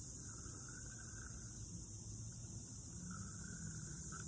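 A chorus of crickets and other insects: a steady, high-pitched trill, with a lower buzzing call coming in twice.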